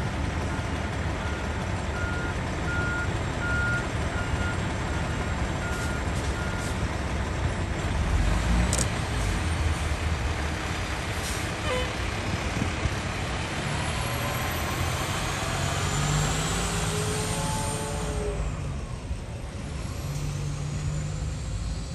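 Fire engine's diesel engine running and then pulling away: its note climbs about two-thirds of the way through, then falls off as the engine leaves. A high beep repeats about once a second over the first several seconds.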